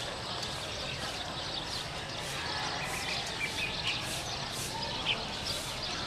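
Steady outdoor background noise with short, high bird chirps repeating several times from about halfway through.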